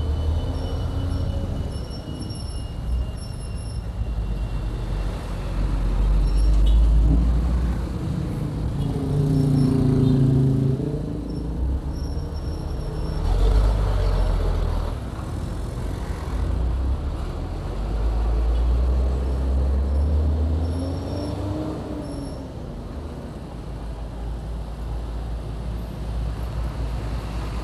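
Motorcycle riding through town traffic: the engine's pitch rises and falls a few times as the bike speeds up and slows, over a heavy low rumble that swells and fades, with surrounding road traffic.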